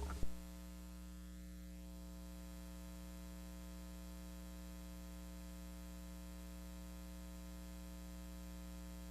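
Steady low electrical hum with a faint hiss, unchanging throughout; no sanding or other handling sound stands out.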